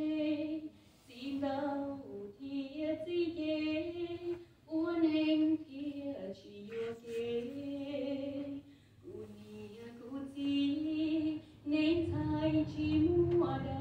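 A woman singing a Hmong song solo into a microphone, with long held notes that waver in pitch and short breaks for breath between phrases.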